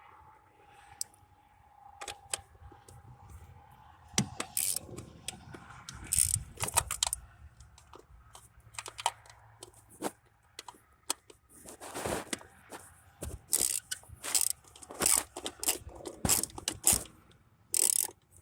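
Socket wrench on an extension clicking and scraping in short, irregular bursts from about four seconds in, as the screws holding a 1993 Chevy 1500's distributor cap are worked loose.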